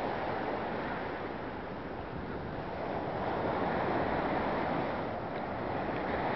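Ocean surf: small waves breaking and washing along the shore in a steady rush that eases slightly and then swells again, with some wind on the microphone.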